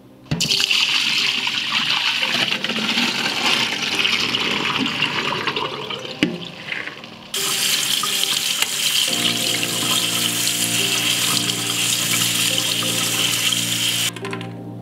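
Water running and splashing onto soaked navy beans in a metal mesh strainer as they are rinsed under a kitchen tap. The flow breaks off briefly about halfway and starts again, over soft background music.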